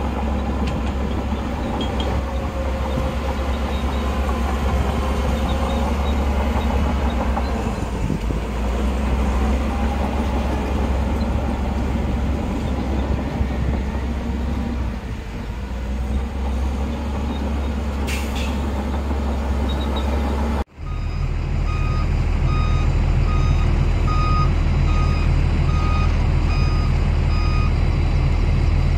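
Heavy diesel earthmoving machinery running under load. After a sudden cut, a machine's reversing alarm beeps steadily at about three beeps every two seconds over the diesel engine.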